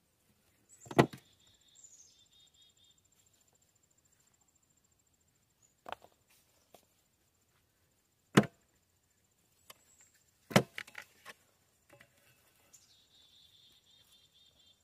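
Hard knocks of rock and wood as stones are packed by hand around the base of a wooden gate post: four sharp knocks a few seconds apart, the last followed by a few lighter ones, with high chirping in the background.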